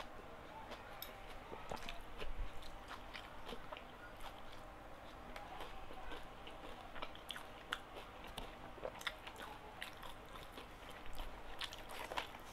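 A person chewing a mouthful of gado-gado, vegetables in thick peanut sauce, with many small wet clicks and crunches scattered irregularly throughout.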